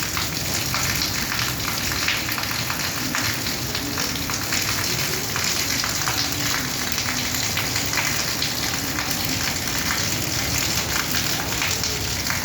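Rain falling steadily, a dense even hiss of drops with fine crackling patter.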